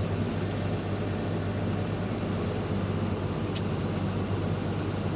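Steady low hum and hiss of running machinery, such as an air-conditioning unit, with one short sharp tick a little past the middle.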